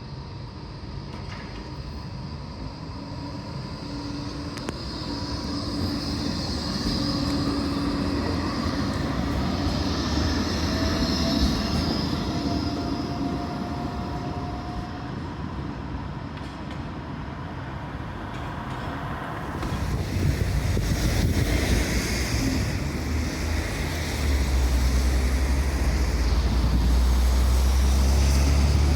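Tram running on its rails with a steady low rumble that grows louder, with faint whining tones in the first half; a strong low hum comes in near the end.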